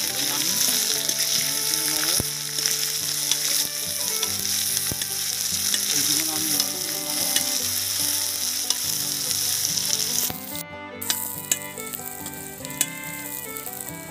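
Sliced onions sizzling in hot mustard oil in a kadai as they are stirred. The sizzle drops clearly about ten seconds in, leaving a quieter frying hiss with a few sharp clicks.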